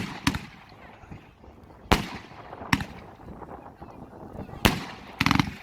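Sharp bangs from a 2-inch (50 mm) fireworks battery cake's shells bursting overhead, about half a dozen at uneven gaps of a second or two, with a quick rattle of several cracks near the end.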